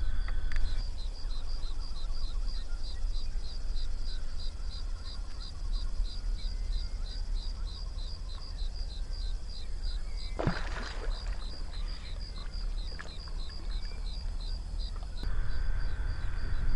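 Insect chirping steadily in high, evenly spaced pulses over a low, steady rumble, with one sudden sharp sound about ten seconds in.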